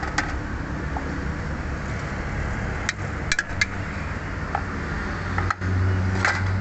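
A steady low mechanical hum, swelling louder near the end, with a few light clicks about three seconds in.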